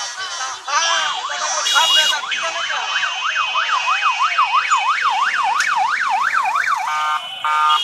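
Electronic siren horns on passing motorcycles, wailing in fast rising-and-falling sweeps about three times a second over steady high horn tones, with warbling glides early on and short horn blasts near the end.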